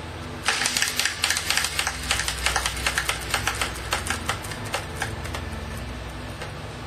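A spinning prize wheel clicking as it turns, starting about half a second in with rapid clicks that gradually slow and space out as the wheel comes to a stop near the end.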